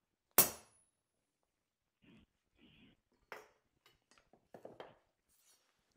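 A single sharp hammer blow on a steel maker's-mark stamp set against a W2 steel knife blank on an anvil, stamping the mark into the blade, with a brief high ring. A few faint knocks and clicks follow.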